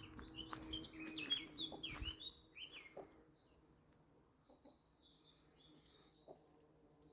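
A small songbird chirping: a quick run of high chirps in the first three seconds, then only faint calls.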